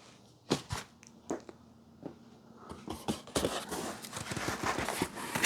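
Packaging being handled: a few separate taps and knocks, then a denser run of crinkling and crackling from about 3 seconds in.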